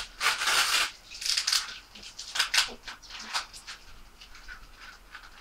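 Crinkly wrapping being rustled and torn by hand as a small package is opened: several short, crackly bursts in the first three seconds, then fainter rustling.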